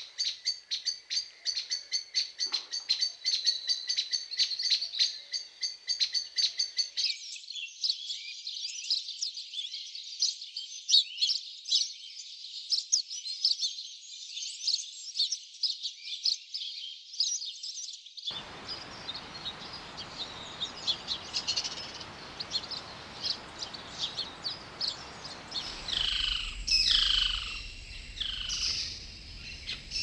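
Birds chirping in rapid runs of short, high notes. Near the end, louder calls that sweep downward in pitch join in.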